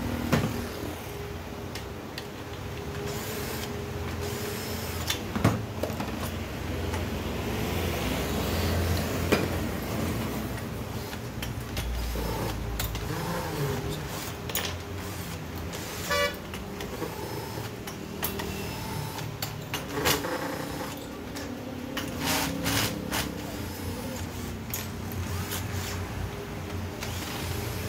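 Hand work on a petrol chainsaw's engine: metal parts clinking and knocking as it is taken apart, over a steady background of street traffic with vehicle horns.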